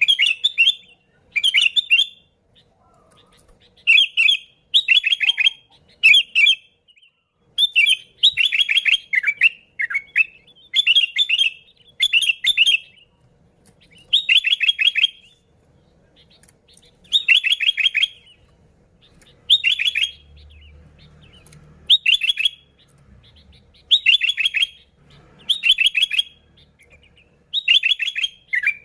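Sooty-headed bulbul (kutilang) singing energetically: short, bubbly phrases of rapid notes, repeated every second or two.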